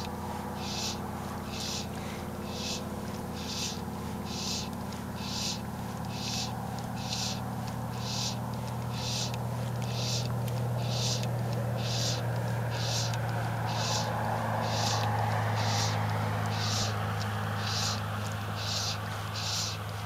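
Insects calling in a steady rhythm, short high-pitched pulses a little under a second apart, over a low steady hum that swells for a few seconds in the second half.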